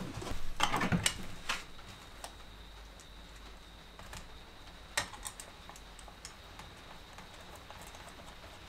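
Light clicks and taps of small hand work on small parts and screws: a quick cluster in the first second and a half, then a few single clicks, over a faint steady hum.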